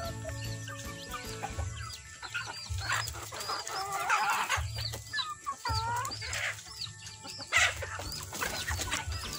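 A flock of free-range chickens clucking and calling, with many short high peeps throughout. A louder stretch of calling comes about three to five seconds in, and a sharp loud call near the end.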